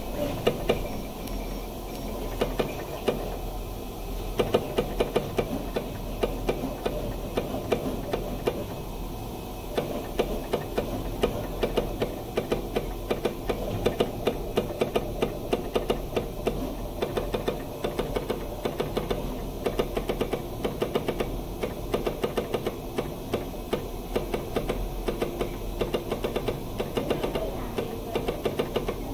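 Jingwei pattern-cutting machine cutting white PVC sheet: rapid, irregular clicking and ticking from the cutting head, over a steady low mains hum.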